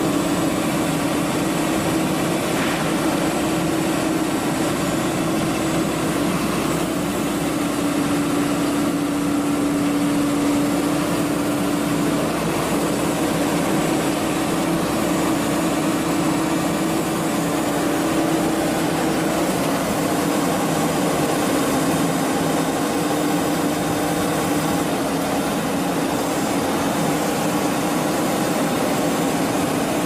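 Tracked skid steer loader's engine running steadily, its pitch dipping a little and rising again several times as engine speed shifts.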